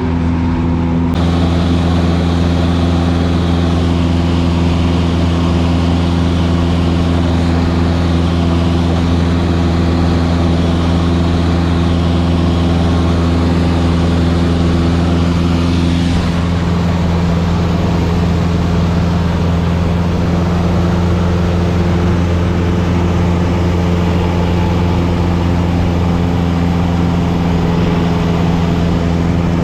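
Cessna 172's piston engine and propeller droning steadily in flight, heard from inside the cabin. Its tone shifts slightly about sixteen seconds in.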